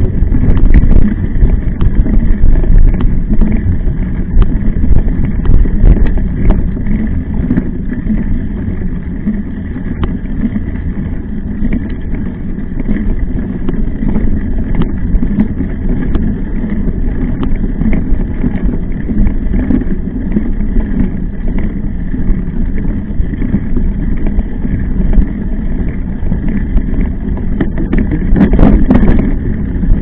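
Wind buffeting the microphone of a camera riding on a mountain bike, with the steady rumble of tyres over a rough trail and frequent short rattles and knocks from the bike. A louder jolt comes near the end.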